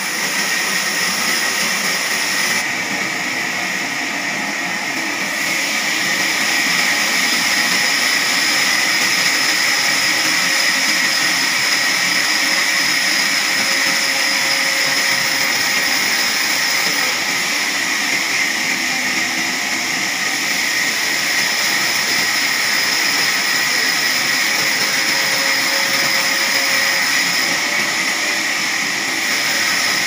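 Large log band saw running steadily with a high whine as its blade cuts lengthwise through a big log; it grows a little louder a few seconds in.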